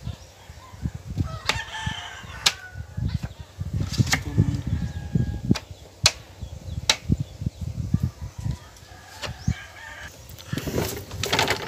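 Hand work on the plywood edge of a wooden boat hull: rubbing strokes with several sharp knocks on wood. A rooster crows in the background.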